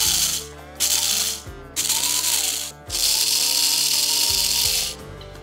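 Electric blade coffee grinder pulsed four times, grinding black peppercorns: each press brings a loud hiss of peppercorns being chopped over a rising motor whine, the last run the longest at about two seconds. Background music underneath.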